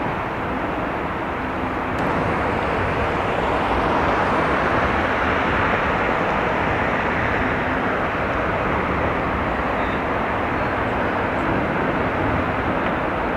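Steady, even outdoor rumble with no distinct events, a little louder from about two seconds in; no ship's horn sounds.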